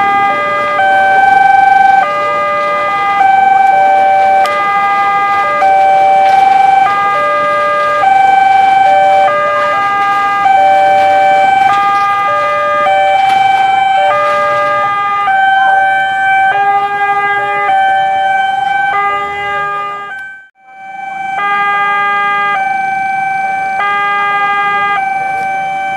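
Electronic level-crossing warning alarm sounding from a horn loudspeaker on the crossing signal post: an alternating two-note tone repeating in a steady cycle of about a second and a half. A lower note joins in during the later part. The alarm cuts out sharply for a moment about twenty seconds in and then starts again.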